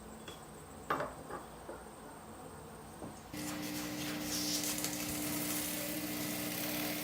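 A few metal clinks, the loudest about a second in, then a small electric power tool switches on about three seconds in and runs steadily with a hum and a hiss.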